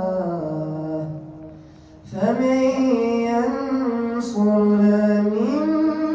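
A boy's voice reciting the Quran in melodic tajwid style into a microphone, holding long, slowly ornamented notes. A phrase trails off about a second and a half in, and after a short breath a new drawn-out phrase begins.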